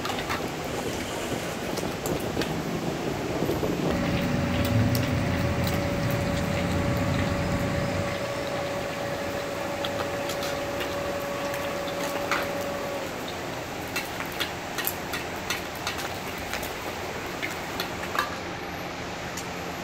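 Hot oil sizzling and bubbling in a wok as a crab omelette deep-fries, with steel ladles clicking and scraping against the wok. A steady whine runs for several seconds in the middle, with a low rumble at its start.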